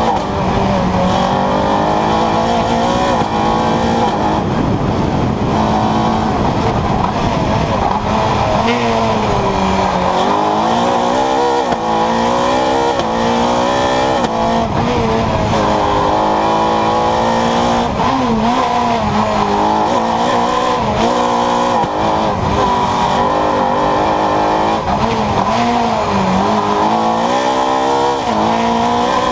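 Renault Clio R3 Maxi rally car's naturally aspirated 2.0-litre four-cylinder engine driven hard, loud throughout, its pitch repeatedly climbing under acceleration and dropping with gear changes and braking for corners.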